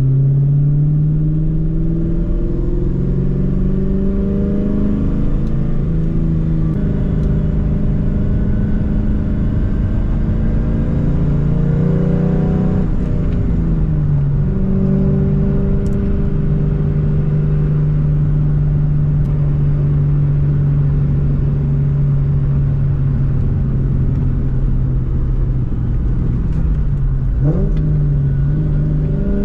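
2004 Mustang GT's V8 running through an off-road X-pipe and Borla S-Type mufflers while driving: the engine pulls up in pitch, dropping back at gear changes about six and thirteen seconds in, then holds steady at cruise. Near the end the pitch dips and rises again briefly.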